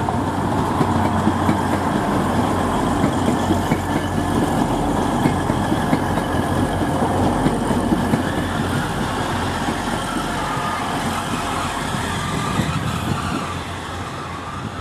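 A train running through a station: a steady rumble and rattle of wheels on the rails that eases off a little near the end.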